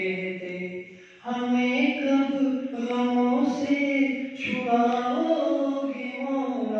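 Men's voices chanting an Urdu munajat, a devotional supplication, without instruments. The melodic lines are long and held, with a brief breath pause about a second in.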